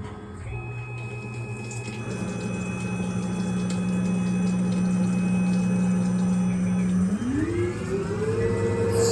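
Tormach Slant-Pro CNC lathe running a cutting program on brass: a steady electric spindle whine over a low hum, which rises smoothly in pitch about seven seconds in as the spindle speeds up, then holds at the higher speed.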